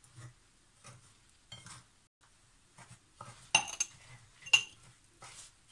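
Spoon scraping and clinking against a ceramic bowl while oil is stirred into semolina: a run of short, quiet scrapes, with two louder ringing clinks about three and a half and four and a half seconds in.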